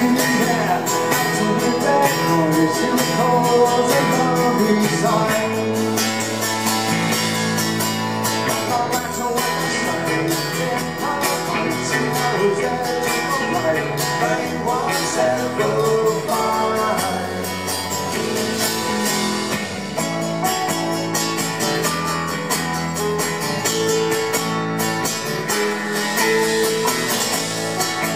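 Live rock band playing: acoustic guitar, electric bass and drums.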